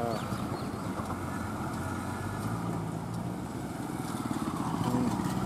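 A heavy Tata tanker truck's diesel engine running steadily as it crawls along a rough dirt road, mixed with the engines of motorcycles passing close by.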